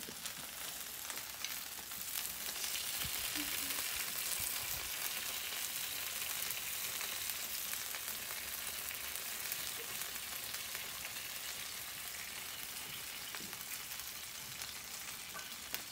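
Oven-baked chicken drumsticks and their drippings sizzling on a hot sheet pan just pulled out of a 450° oven, a steady hiss with fine scattered crackles, while buffalo sauce is brushed on.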